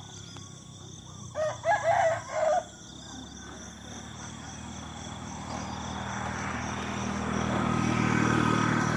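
A rooster crows once, about a second and a half in, over a steady high-pitched buzz. After the crow a low humming, rushing noise grows steadily louder.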